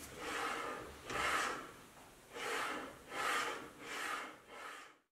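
The aluminium arm of a home-built surface grinder attachment for a belt grinder is slid back and forth along its rail by hand, making about six rushing strokes. The grinder's motor is not running. The sound cuts off suddenly near the end.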